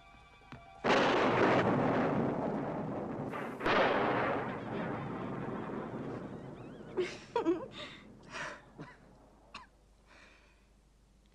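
Faint music, then a sudden loud blast just under a second in that trails off in a long rush, with a second blast about three seconds later. A few brief squeaky sounds come near the end.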